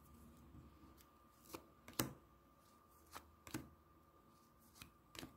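Tarot cards being drawn from the deck and laid down on a table: a handful of short, soft card slaps and flicks, spaced apart, with near silence between them.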